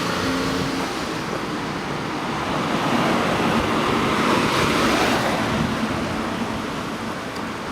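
A vehicle passing close by: a rushing swell of tyre and road noise that builds to a peak about four and a half seconds in, then fades away.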